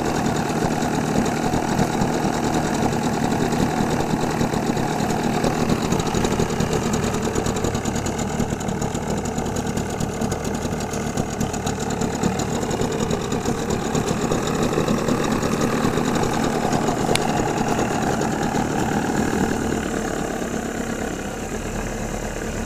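1962 Evinrude Lark IV 40 hp two-stroke twin outboard running in a test barrel, its exhaust churning and bubbling the water. It eases off slightly near the end. After a carburettor rebuild, the owner says it still doesn't sound right.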